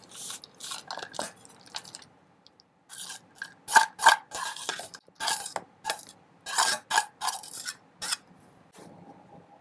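A spoon scraping and clinking against a bowl in a string of short strokes as roasted-peanut salad is scooped out into a serving dish, with a brief pause about two seconds in.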